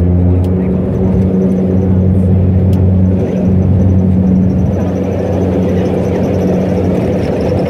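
Saab 340's General Electric CT7 turboprop engines and propellers running steadily, heard from inside the cabin as a loud, even low drone.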